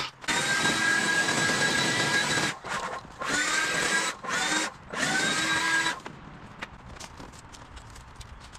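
Cordless battery leaf blower running in several trigger pulses: a steady high whine and rush of air, cut off briefly three or four times, each restart spinning up with a rising whine. It stops about six seconds in, leaving only faint clicks.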